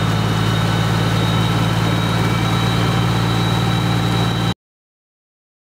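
Fire engine's motor running steadily, with a steady high whine above the low engine note. It cuts off suddenly about four and a half seconds in.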